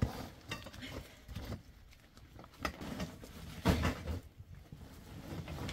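Handling of a heavy canvas tent bag: scuffing footsteps and rustling as it is carried, with a dull thump a little over three and a half seconds in as it is set down on the floor.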